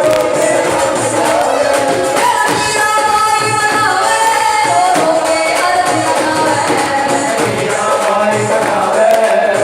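A high voice singing a melody in long, wavering held notes over backing music with a steady beat.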